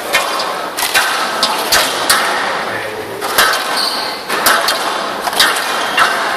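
Squash rally on a glass court: sharp cracks of the ball off the rackets and the court walls, coming irregularly every half second or so.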